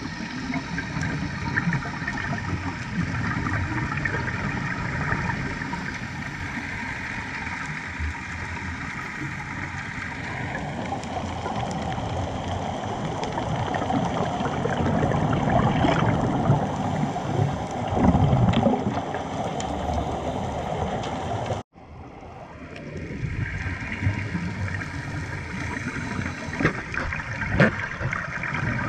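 Underwater sound picked up by a camera in its housing on a scuba dive: a muffled rush and rumble of water with bubbling gurgles and small clicks. It drops out abruptly for a moment about three quarters of the way through.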